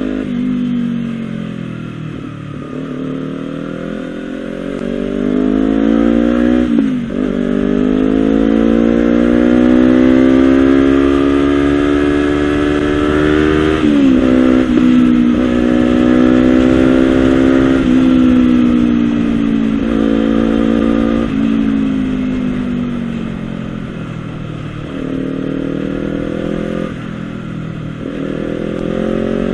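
Honda CBR250RR two-cylinder engine running through a Villan SV1 slip-on exhaust. The revs climb and fall slowly over several seconds at a time, with a few sudden jumps in pitch.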